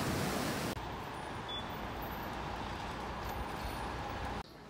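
Waves breaking on a rocky shore, cut off abruptly under a second in by a steady low rumble of road traffic, which itself cuts off near the end to a much quieter background.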